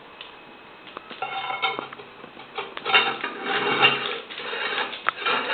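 Metal parts of a portable grinder clattering and clinking irregularly, with short ringing tones. It starts about a second in and is loudest around three to four seconds in.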